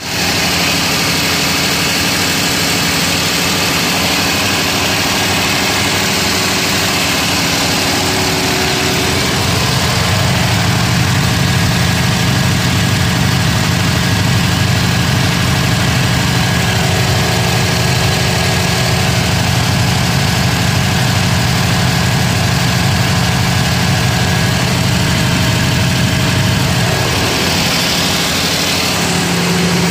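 Cummins diesel engine of a Powerica 750 kVA generator set running steadily at constant speed, a loud continuous drone. It gets a little louder about a third of the way in, and its tone shifts near the end.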